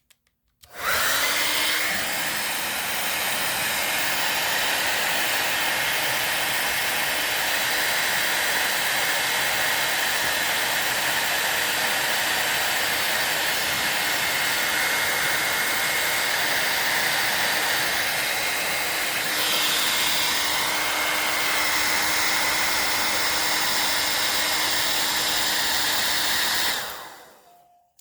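Handheld hair dryer running steadily, a rush of blown air with a faint motor whine. It is switched on about a second in and switched off near the end, winding down.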